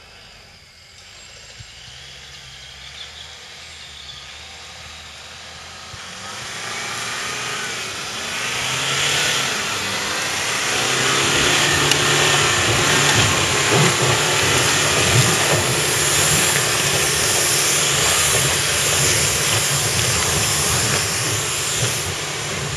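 Off-road 4x4 engine working under load on a muddy slope, with a loud hiss over its low hum. It grows louder from about six seconds in and is loudest from about twelve seconds on.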